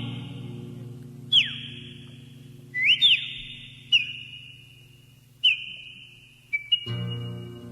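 High, clean bird-like whistles in a folk song's instrumental break: a series of calls, each sliding sharply upward and then holding a steady note, repeated every second or so. Under them a sustained chord fades away, and the accompaniment swells back in near the end.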